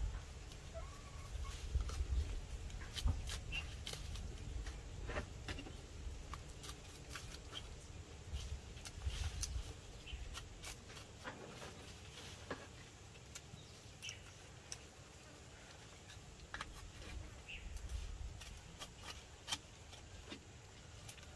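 A knife blade cutting and scoring the soft bark of a freshly scraped Ceylon cinnamon branch into sections for peeling, giving scattered short sharp clicks and scrapes. A low rumble underlies it, strongest in the first few seconds.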